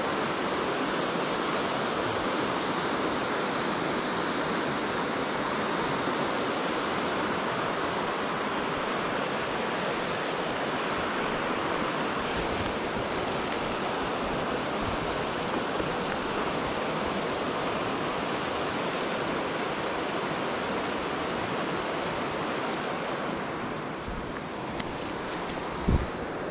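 Steady rush of a mountain stream's flowing water. Near the end it eases slightly, and a couple of short thumps stand out.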